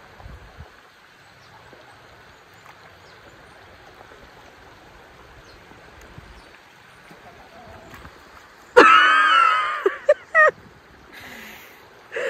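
A stream flowing steadily, then about nine seconds in a loud high-pitched cry of under two seconds, followed by two short ones.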